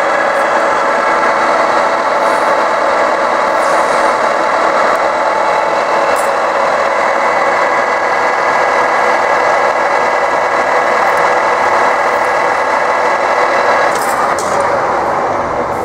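Metal-working lathe running steadily under power, its gearing giving a steady multi-tone whine as the chuck spins a disc for a cut; the sound eases off slightly at the very end.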